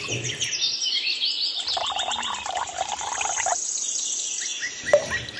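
High-pitched, bird-like chirping, with many short calls repeating quickly, and a patch of duller noise in the middle.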